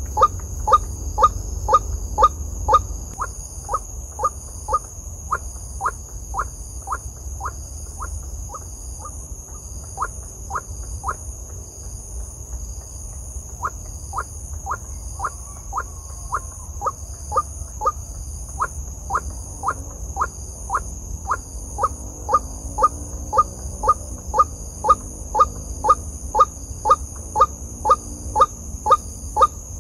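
White-breasted waterhen calling: short, sharp notes repeated steadily about twice a second, weaker for a while in the middle and strong again in the second half. A steady high insect buzz runs underneath.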